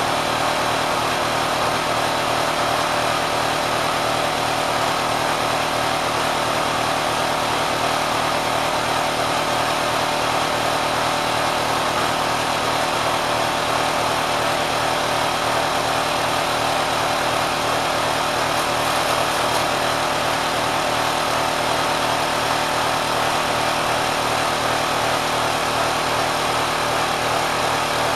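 Kenmore sewing machine driven by a swapped-in 3/4 hp electric motor, running steadily at high speed with an unchanging pitch.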